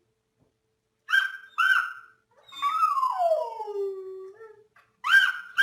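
Dog giving two short high yelps, then one long howl that slides down in pitch, and starting the same yelps again near the end.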